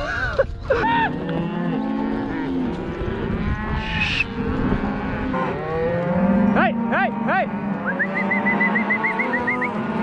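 A herd of beef cows and calves mooing and bawling over one another as they are driven uphill, many calls overlapping, thickest in the second half. Near the end a quick string of short high chirps runs over the herd.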